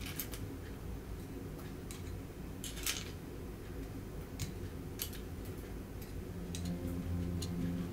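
Small metal tongs clicking lightly as lumps of rock sugar are set down in a small stainless steel pan: a few scattered, separate clicks, over a steady low hum.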